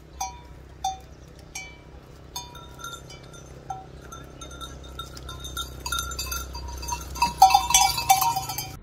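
Livestock neck bell clanking in single strokes about once a second, then jangling rapidly and louder for the last second and a half.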